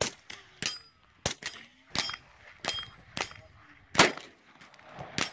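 A string of about ten gunshots at irregular intervals, several followed by short high pings of steel targets ringing. The loudest shot comes about four seconds in.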